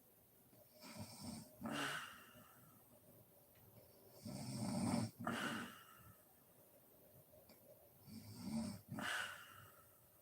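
A sleeping woman snoring: three slow breaths about three and a half seconds apart, each a low snore followed by a shorter, hissier rush of breath.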